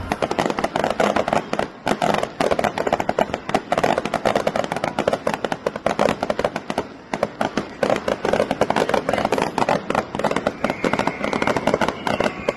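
Fireworks going off in a dense, rapid barrage of cracks and pops, many per second and without a break.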